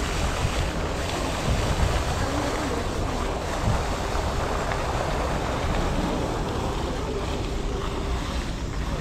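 Wind buffeting the microphone in a steady low rumble, mixed with the rushing splash of the fountains alongside.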